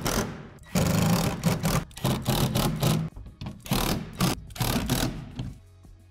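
Cordless drill driving screws into plastic shed wall panels, whirring in several short runs with brief pauses between them. It stops near the end, leaving soft background music.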